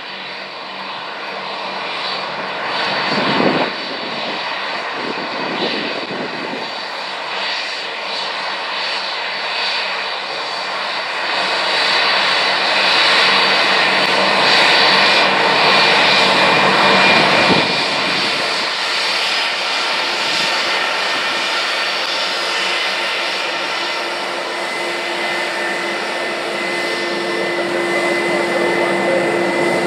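Airbus A320-232's IAE V2500 turbofans at taxi thrust: a steady jet whine with high, held tones. It grows louder as the airliner taxis up, and the tones shift as it turns and passes side-on near the end.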